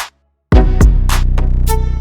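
Hip-hop beat: deep sustained bass notes and sharp drum hits, with a brief dropout to silence just after the start before the beat comes back in.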